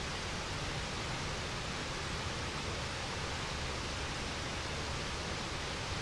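Waterfall: a steady, even rush of falling water with a low rumble beneath, unchanging throughout.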